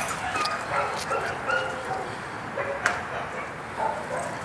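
Dogs yipping and whining while they play, short high calls scattered throughout, with a couple of sharper barks.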